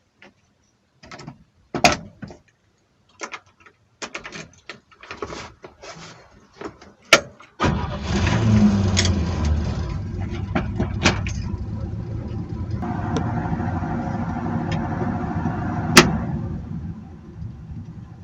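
Scattered clicks and knocks, then about eight seconds in a Chevrolet C10 pickup's engine starts and keeps running, louder for its first couple of seconds, with a sharp click near the end.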